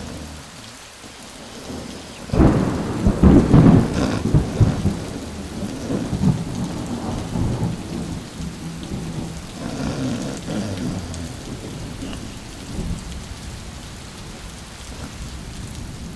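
Thunderstorm: steady rain, with a loud roll of thunder breaking about two seconds in and rumbling away over several seconds, and a weaker roll around ten seconds in.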